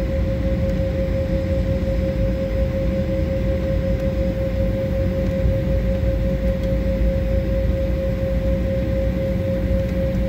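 Jet airliner cabin noise while taxiing: the engines run with an even whine on one steady pitch over a low rumble and a hiss.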